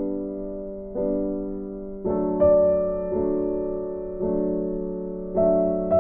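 Background music: slow piano chords struck about once a second, each ringing and fading before the next.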